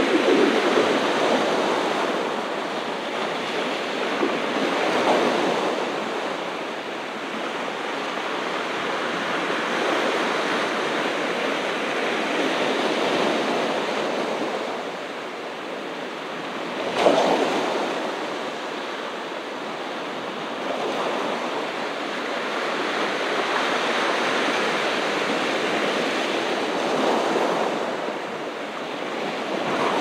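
Ocean surf breaking on a beach: a continuous wash that swells and eases every few seconds as each wave comes in, with one sharper crash about seventeen seconds in.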